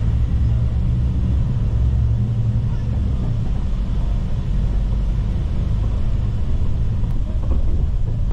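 Steady low rumble of a moving road vehicle heard from inside the cabin: engine and road noise while riding through traffic.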